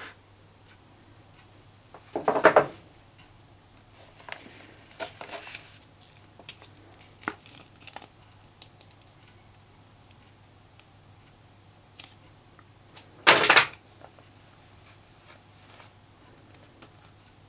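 A cardboard model-kit box and its paper sheets being handled: two louder bursts of scraping and rustling, about two seconds in and again about thirteen seconds in, with lighter paper handling and a few small clicks between. A faint steady hum lies underneath.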